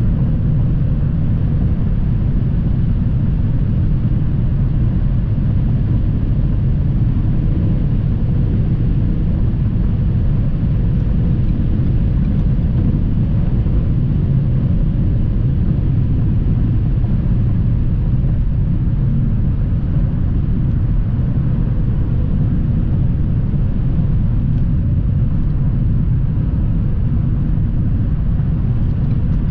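Steady low rumble of tyre, road and engine noise heard inside the cabin of a 2020 Ford Fusion with the turbocharged 2.0 L EcoBoost four-cylinder, cruising at an even highway speed with no revving.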